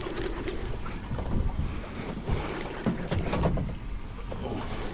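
Wind buffeting the microphone over sea and boat noise, with a few short knocks.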